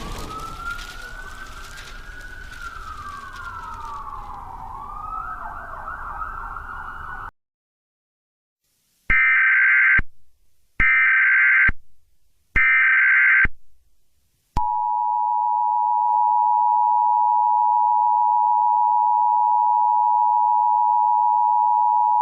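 The rumble of an explosion dies away under a siren wailing up and down, which cuts off about seven seconds in. After a short pause come three short screeches of Emergency Alert System header data, then the steady two-tone EAS attention signal (853 and 960 Hz) that opens a new alert.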